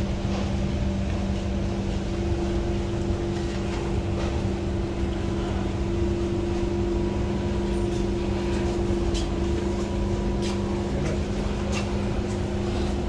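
Steady hum of a stationary SMRT C151 (Kawasaki) metro car's air-conditioning and onboard electrical equipment, with two steady low tones and no traction motor running. A few light clicks in the second half.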